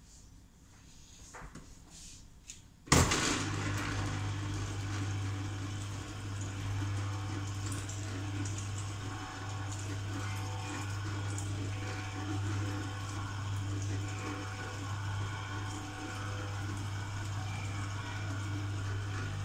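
Electric juicer's motor switching on about three seconds in, then running steadily with a low hum.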